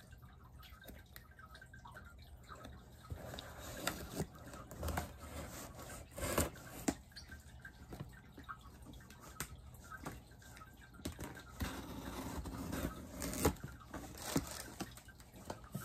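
A blade slitting the packing tape on a cardboard mailing box, with irregular scrapes, clicks and rustles as hands work the lid.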